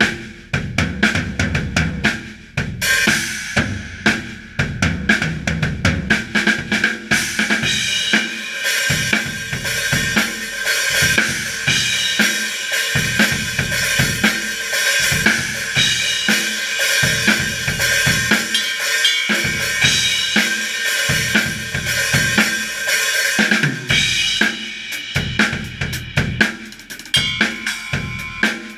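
Acoustic drum kit played alone, with no other instruments, as the drum part of a rock song: kick drum, snare and tom hits under constant cymbal crashes and hi-hat. It opens with heavy drum hits, and the cymbals ring almost without a break from a few seconds in until near the end.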